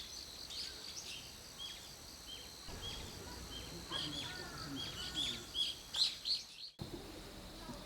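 Small birds chirping, many short repeated calls over a faint steady high whine. The sound cuts off suddenly near the end and a quieter outdoor ambience follows.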